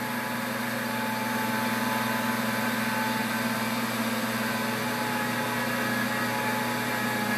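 Pampered Chef Deluxe Cooking Blender on its grind setting, its motor running steadily as it grinds a jar of whole coffee beans.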